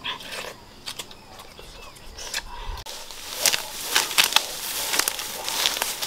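Crisp bites into mangoes, then from about three seconds in a denser crackling rustle of grass and undergrowth.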